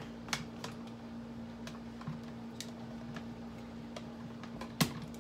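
Scattered small clicks and taps of a container being handled while its top is worked loose, with one sharper click near the end. A steady low hum runs underneath.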